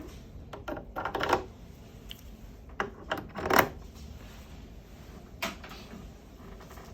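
Clicks and rattles of dental handpiece lines being pushed one by one into the auto-purge cleaning insert of a dental unit. There are a few quick clusters, the loudest about three and a half seconds in, and a single click later.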